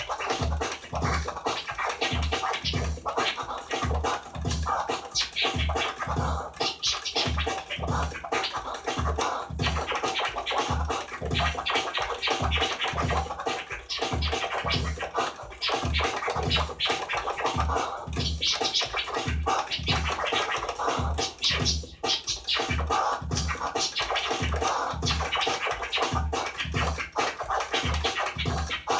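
DJ scratching on a Gemini CDT-05 Pro hybrid CD turntable, the cuts chopped with an optical crossfader, over an electronic beat with a steady kick drum.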